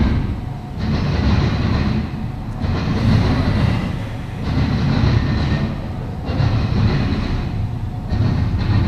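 Norfolk Southern double-stack intermodal train's well cars rolling past, steel wheels rumbling and clacking on the rails. The sound swells and fades about every second and a half as the cars go by.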